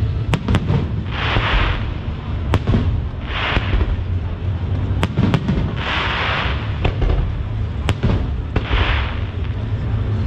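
Fireworks display: aerial shells bursting with sharp bangs every two to three seconds, each followed under a second later by a short hiss, over a steady low rumble.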